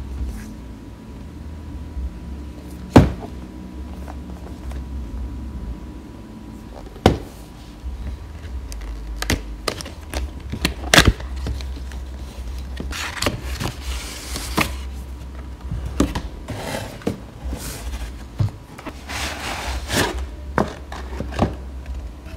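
Cardboard headset packaging being handled and opened by hand: sharp taps and knocks on the box, the loudest about three seconds in, and stretches of rustling and scraping as the inner sleeve and plastic tray slide out.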